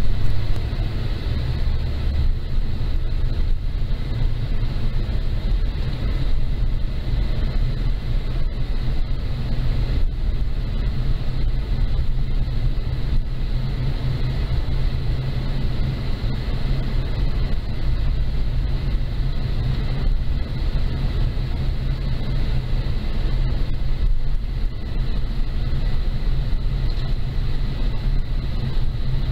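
Steady road and engine noise inside a moving car's cabin: a low rumble with a faint, steady high whine.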